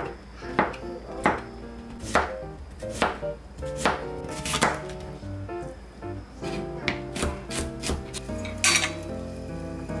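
Kitchen knife chopping king oyster mushrooms on a cutting board, with single sharp strokes a little under a second apart, then a quicker run of strikes while dicing near the end. Soft background music plays under the chopping.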